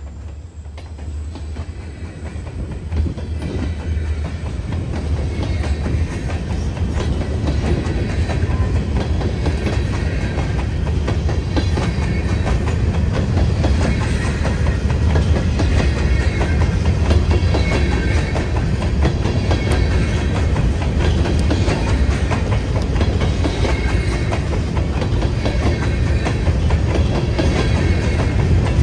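Freight cars, an autorack and then covered hoppers, rolling past close by: steady steel-wheel noise on the rails with a deep low hum and clacking over the rail joints. It grows louder over the first several seconds, then holds steady.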